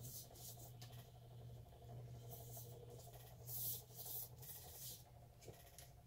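Gloved hand rubbing a light coat of epoxy over a stainless steel tumbler: a handful of faint, short rubbing swishes, the loudest about three and a half seconds in.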